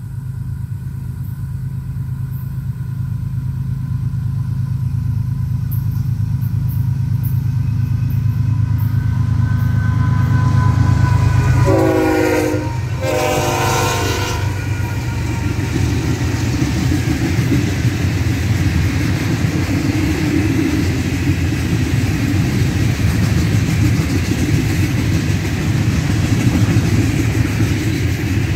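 A Florida East Coast Railway freight train approaches and passes. The diesel locomotive's engine rumble builds, then its air horn sounds two blasts about twelve seconds in. After the horn comes the steady rolling, clickety-clack noise of a long string of loaded gravel hopper cars on the rails.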